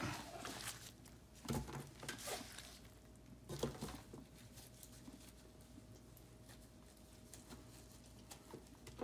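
A few scattered soft knocks and handling sounds: a knife cutting cooked pork spareribs into rib tips on a plastic cutting board, and the pieces being moved into a plastic food pan. A faint steady hum runs under the second half.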